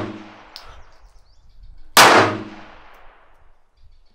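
Handgun shots fired at a covered shooting range: the echoing tail of one shot fades at the start, and a second sharp, loud shot cracks about two seconds in, then rings out for over a second under the shelter's roof. A short click comes about half a second in.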